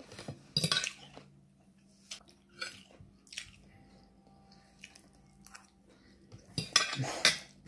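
A fork clinking and scraping against a plate in short, separate clatters, with chewing between them. The loudest clatters come just under a second in and near the end.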